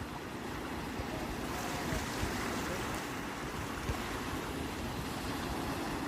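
Sea waves washing in: a continuous rushing that swells from about one and a half seconds in.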